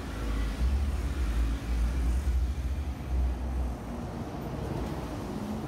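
Street traffic with a city bus driving up a bus lane to the platform: a steady deep rumble under road noise.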